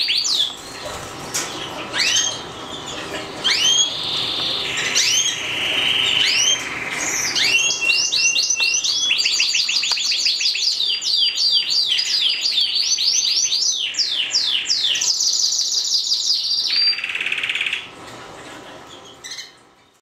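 Yellow variegated canary singing a long song of rapid trills and repeated high sweeping notes, switching to a new phrase every second or two. The song fades out near the end.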